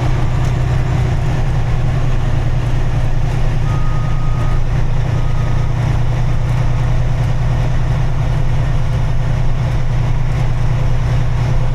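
Steady, low engine drone of a vehicle driving slowly. About four seconds in come two short, high steady beeps, the second shorter than the first.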